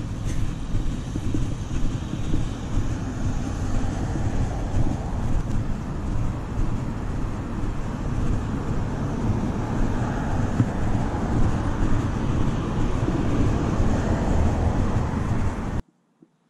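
Outdoor background noise: a loud, wavering low rumble with a rushing hiss above it, cutting off suddenly near the end.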